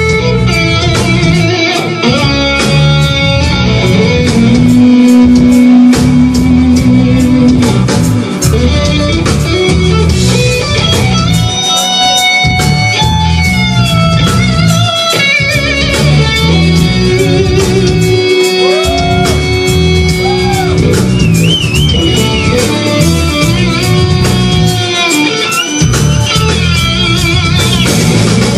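Electric guitar playing a melodic lead in a ballad with a band behind it: long held notes, some bent up and down and shaken with vibrato, over bass and a steady beat.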